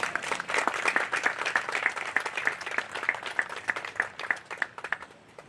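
Audience applauding, many hands clapping together, the clapping thinning out and stopping near the end.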